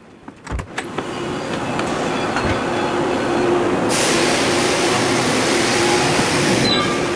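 A door opens with a few clicks and knocks, letting in loud, steady machine-shop noise: a rushing din with a steady hum, swelling over the first two seconds. A brighter hiss joins about four seconds in and drops out near the end.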